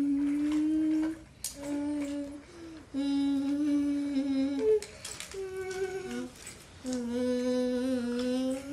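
A child humming in long held notes, one after another with short breaks between them, the pitch shifting slightly from note to note. A few sharp clicks fall between the notes.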